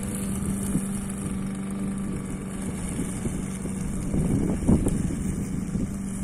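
Walk-behind lawn mower engine running steadily at a constant pitch as it mulches wet leaves, with louder irregular surges about four to five seconds in as the blade chops through the leaf layer.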